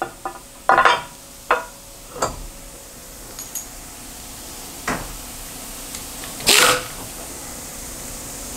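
Sharp metal clunks and clicks, several in the first two seconds and another about five seconds in, as a metal plate is set onto a modular fixture plate and locked down with quick-change fasteners. A louder, longer noisy burst comes about six and a half seconds in.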